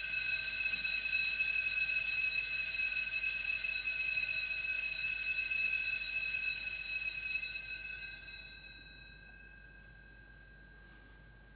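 Altar bell rung once at the elevation of the chalice, ringing out with several high, clear tones that fade slowly and die away about nine seconds in, the lowest tone lingering longest.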